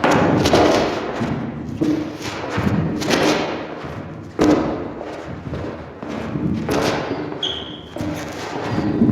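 Footsteps of hard shoes on a wooden floor, slow and uneven at about one step a second, each step a heavy thud with a reverberant ring. A brief high squeak comes about seven and a half seconds in.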